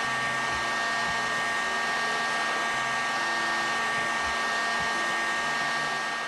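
Heat gun blowing hot air onto a TLC plate dipped in potassium permanganate stain, to develop the spots: a steady rushing blow with a constant high whine.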